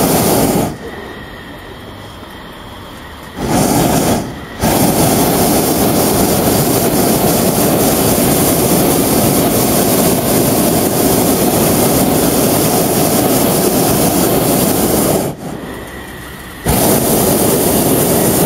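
Hot-air balloon's propane burner firing in blasts: a short burst at the start, another about three and a half seconds in, then a long burn of about ten seconds, and a fresh burn starting near the end.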